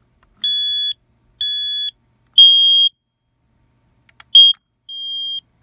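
Smoke alarms, a Firex FADC and a Kidde i12010SCO, sounding their fire alarm: a loud, high-pitched three-beep pattern of half-second beeps. Near the end a second run of beeps starts at a slightly lower pitch, out of step with the first.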